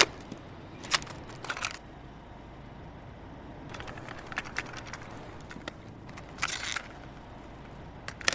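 A quiet gap with a low steady hiss and a few scattered crackles and clicks. The sharpest come about a second in and just before the end, with short crackly patches around four to five seconds and six and a half seconds in.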